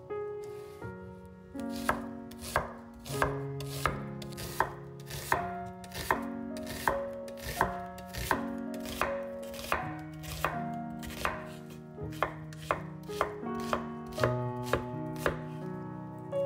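A kitchen knife chopping vegetables on a cutting board in sharp, regular strokes, about one to two a second, coming a little faster near the end. Soft background music plays underneath.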